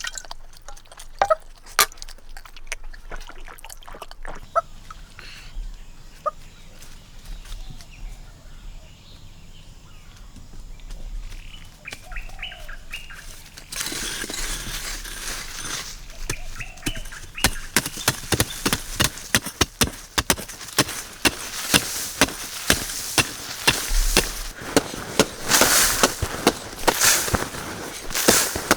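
Irregular sharp knocks and clicks with a few faint bird chirps around the middle; about halfway through, a steady rushing noise comes in and the knocks grow denser and louder.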